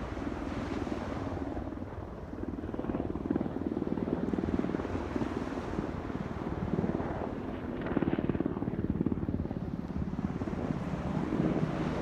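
Small waves breaking and washing up a sandy beach, under a steady low rumble.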